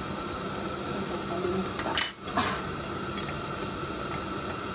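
Kitchen dishes and utensils clattering: one sharp clank about two seconds in, followed by a few light clinks.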